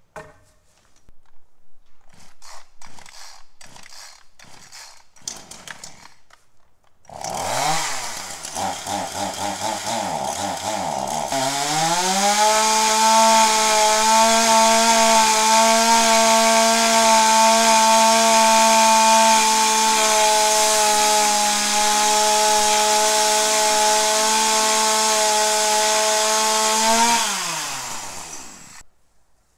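Chainsaw cutting a 2x4 board. A few knocks come first, then the saw starts about seven seconds in, rises in pitch, runs at a steady pitch for about fifteen seconds and winds down near the end.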